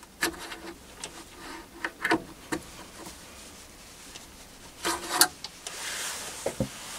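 Indexing pin on a mini lathe's 24-hole indexing ring being worked by hand as the chuck is turned: a few scattered metallic clicks and knocks with light rubbing, the loudest cluster about five seconds in.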